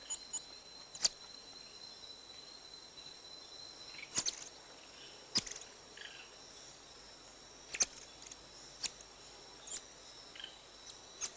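Rainforest insects, crickets or similar, trilling as two steady high tones. The lower tone stops about four seconds in and the higher one carries on, with sharp short clicks or chirps every second or two.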